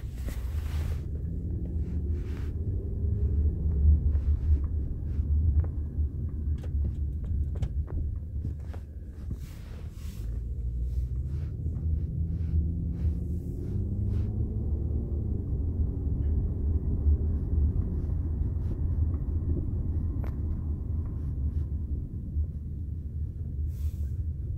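Inside a moving 1998 Toyota Camry: a low road rumble, with the engine rising in pitch twice as the car accelerates, and scattered knocks and clunks. The owner blames the knocking on newly installed aftermarket struts.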